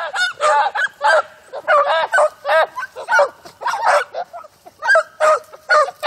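A pack of rabbit hounds baying as they run a rabbit's scent trail, a steady string of yelping calls about three a second, with voices overlapping at times.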